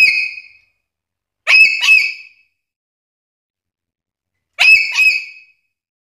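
Black-capped lory (Lorius lory) giving loud whistled calls: three calls with pauses between, each opening with a quick upward sweep into a held note, the second and third each doubled.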